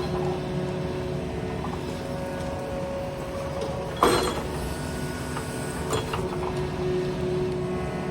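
Yanmar ViO55 mini excavator running steadily while digging, with a sharp clank about four seconds in and a lighter one near six.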